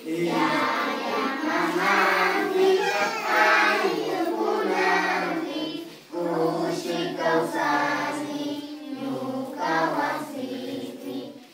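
A group of children singing a song together, with a short break about six seconds in.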